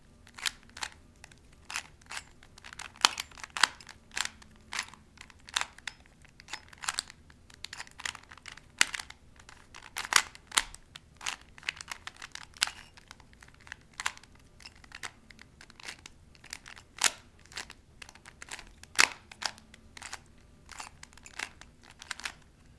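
Plastic Rubik's Cube being twisted quickly by hand to scramble it: a run of irregular sharp clicks and clacks as the layers turn, a few each second.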